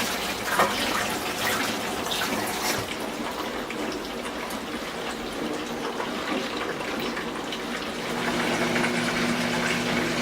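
Chicken cutlet deep-frying in hot oil: a steady sizzle with scattered crackles and pops. A low steady hum joins near the end.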